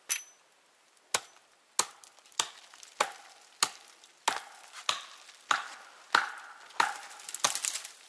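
Hatchet chopping branches off a standing tree, overhead. There is a short strike at the start, then about eleven evenly spaced chops, roughly every 0.6 seconds.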